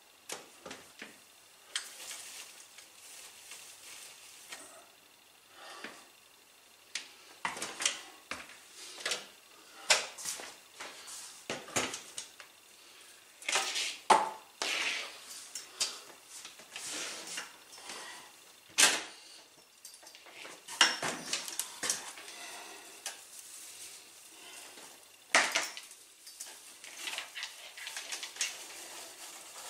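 Artificial pine garland being handled and draped, its plastic branches rustling and crackling in irregular bursts, with scattered clicks and knocks.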